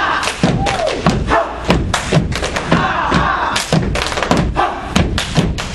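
Step-dance routine: several steppers stomping on the stage and slapping their legs in a quick, rhythmic run of sharp thuds, with a crowd shouting over it.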